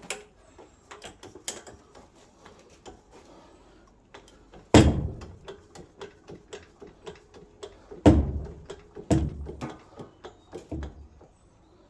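Irregular knocks, taps and clatter as the fuel tank and its mounting hardware are worked into place, with three loud clunks about five, eight and nine seconds in.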